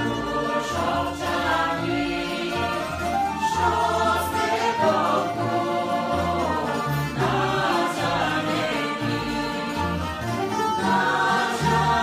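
Bulgarian folk ensemble singing a folk song in chorus, women's and men's voices together, accompanied by Bulgarian tamburas.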